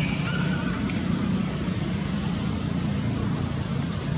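Steady low rumble of background motor traffic, with a couple of faint short chirps in the first second.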